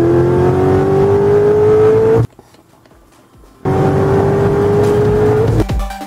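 Corvette V8 engine pulling hard under acceleration, its pitch rising steadily for about two seconds. The sound cuts away for over a second, then the engine pulls again at a high, slightly rising pitch. Electronic music with a steady beat comes in near the end.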